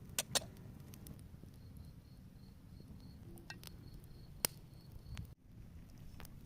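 Small wood fire burning with a low steady rumble and a few sharp crackling pops, two just after the start and one about two-thirds through. A faint, evenly pulsing chirp, like a cricket, runs in the background for a few seconds.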